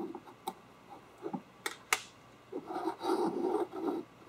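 Piston ring being worked off its groove on an engine piston by hand: a few sharp metallic clicks, then about a second and a half of scraping and rubbing.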